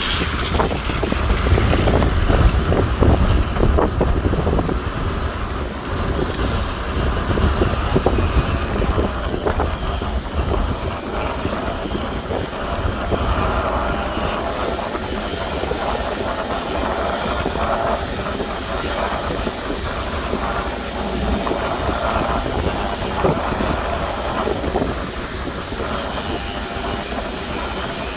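Stick (shielded metal arc) welding on a steel tank: the arc runs continuously with an irregular crackle.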